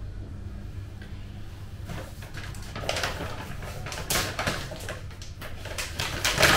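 Kitchen clatter: a small cooking pot and utensils being handled on the counter, a run of knocks and clinks starting about two seconds in and loudest near the end.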